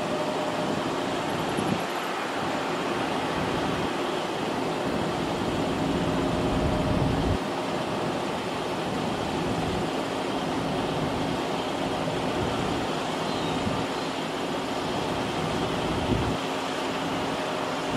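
Steady rushing jet noise from a Boeing 777F's GE90 engines on final approach, with a faint steady tone in it. Wind buffets the microphone briefly a few times.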